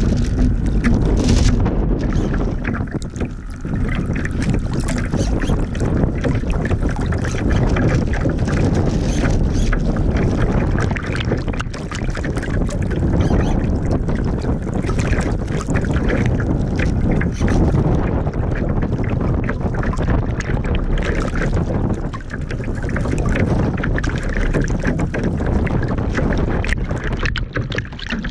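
Water rushing and splashing along the hull and over the deck of an RC Laser model sailing yacht heeled hard in choppy water, with wind buffeting the deck-mounted microphone.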